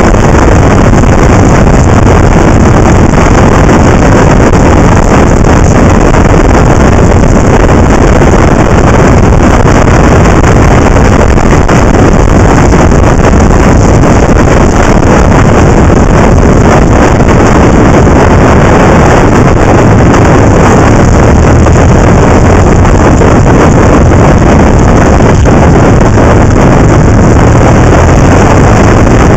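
Very loud, steady wind rushing over the microphone of a camera mounted on a motorcycle riding at speed, burying the engine and tyre sound beneath it.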